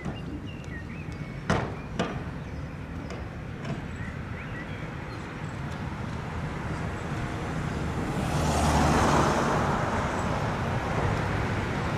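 A road vehicle passing close by, swelling to its loudest about nine seconds in and then easing off, over a steady low rumble of traffic. Two sharp knocks sound about a second and a half and two seconds in.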